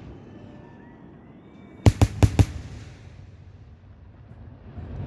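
Fireworks exploding: four sharp bangs in quick succession about two seconds in.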